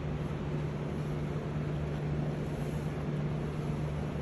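Steady background hum with a constant low tone, even in level throughout, like a running engine, fan or air conditioner; no hammering from the impact wrench.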